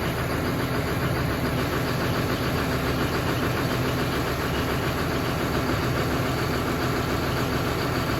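Diesel engine of a farm machine idling steadily just after a cold start at −30°C, its block heater having been plugged in all night.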